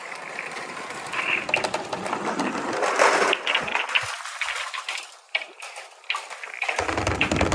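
Hard balls rolling down a wooden marble-run track with a dense, rapid clicking and rattling as they knock against each other and the wood. The rattle thins out briefly, then a low rolling rumble sets in near the end.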